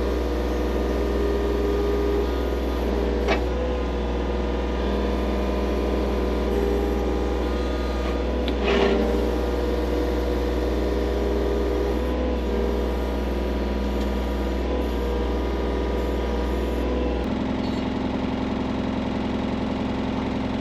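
Skid steer loader's engine running steadily, with a couple of sharp knocks. About 17 seconds in the engine note changes: the deep hum drops away and a higher steady tone takes over.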